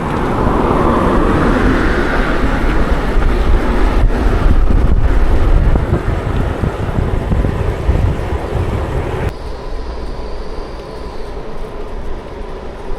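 Road noise while riding through traffic: a heavy wind rumble on the microphone under the hiss of passing vehicles, easing and quietening about nine seconds in.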